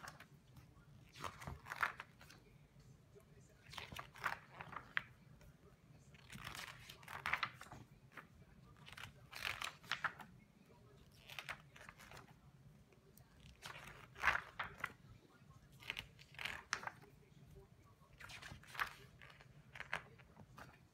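Pages of a large book being turned one after another, a papery swish and rustle about every two to two and a half seconds, about eight turns in all.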